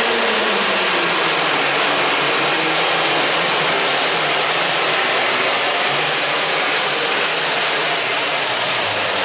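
Pulling vehicle's engine running at full power under load while dragging the weight sled, loud and unbroken, its pitch easing down slightly in the first second.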